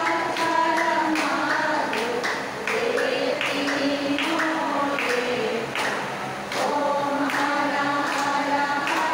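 A group of women singing a Hindu aarti hymn together in unison, over a regular beat of sharp taps.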